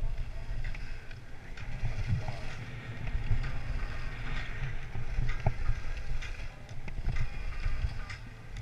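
Skis running down packed snow with short edge scrapes, under a steady rumble of wind on the action camera's microphone.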